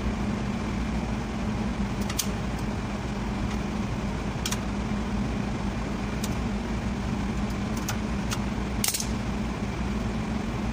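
A steady low machine hum, with about six light metallic clicks scattered through it as pliers work the drum brake shoes and adjuster hardware; the sharpest click comes near the end.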